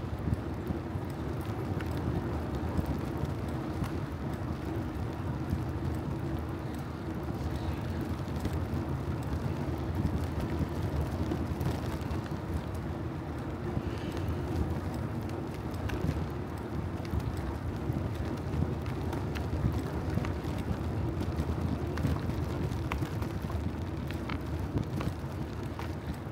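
Riding noise from a bicycle on the move: a steady low rumble of wind and road on the microphone, with scattered small clicks and rattles.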